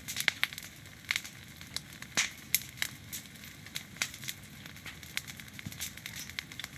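Bonfire of firewood and branches burning, crackling with irregular sharp pops over a soft steady hiss; the loudest pops come a little past two seconds in.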